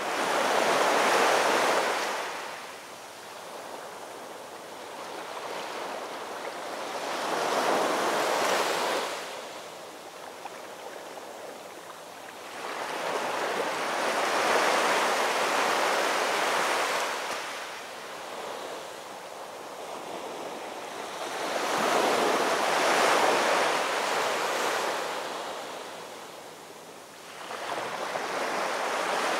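Ocean surf: waves breaking and washing in, the sound swelling and falling away every six to eight seconds.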